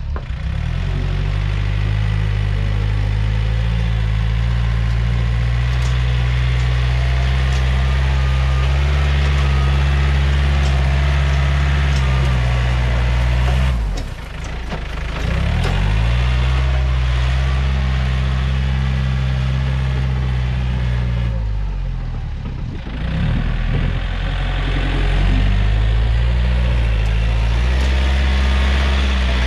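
Yanmar EF514T tractor's diesel engine running steadily while the tractor pushes soil. Its pitch drops briefly and picks back up twice, near the middle and about three quarters of the way through, as the engine is loaded.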